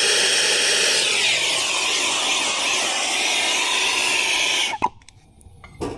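Air-acetylene turbo torch burning with a loud, steady hiss that shifts in tone about a second in, then shuts off suddenly near the end, followed by a few sharp clicks.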